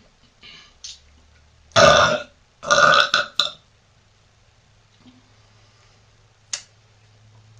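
A young woman burping loudly twice, the second burp longer and broken into a few pulses, followed a few seconds later by a single short click.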